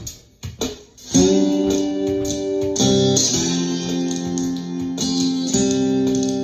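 Ovation koa acoustic-electric guitar in open C tuning, chords strummed and left ringing, coming in about a second in and changing twice, over a steady drum-machine beat.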